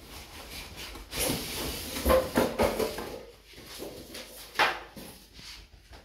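Large cardboard carton scraping and rubbing as it is lifted up off a tumble dryer, with a short sharp knock about four and a half seconds in.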